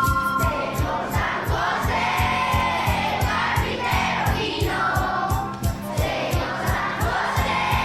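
Music: several voices singing over a steady fast beat of about four thumps a second.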